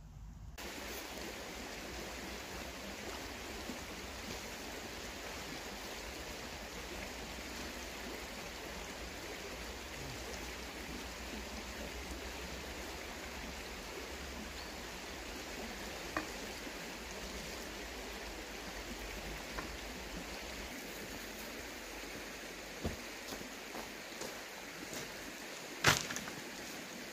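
Shallow river running over stones, a steady rush of water. A few sharp knocks and clicks come in the second half, the loudest near the end.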